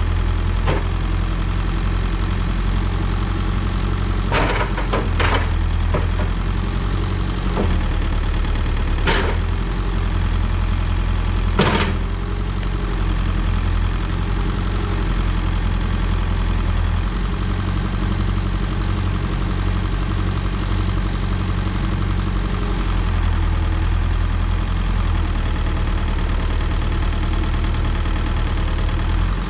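Diesel engine of a 2006 Volvo BL71 backhoe loader idling steadily, with a few sharp knocks in the first dozen seconds.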